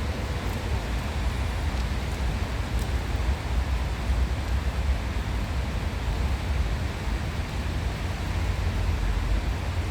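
Steady rushing outdoor noise with a heavy, uneven low rumble underneath, unbroken throughout.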